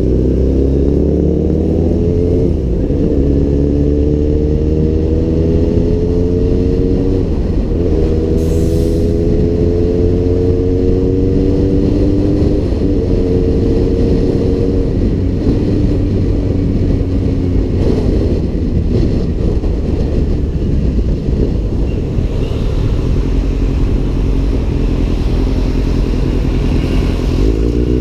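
Kawasaki Z800's inline-four engine through an Arrow aftermarket exhaust, pulling up through the gears. The note rises and breaks at upshifts about 2½, 7½ and 12½ seconds in, then runs steadier and lower for a while and picks up again near the end. A steady low wind rumble sits on the microphone throughout.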